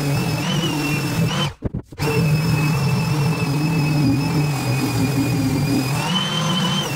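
Electric random orbital sander running against a black walnut frame: a steady motor whine whose pitch wavers slightly. The sound cuts out for about half a second, roughly one and a half seconds in.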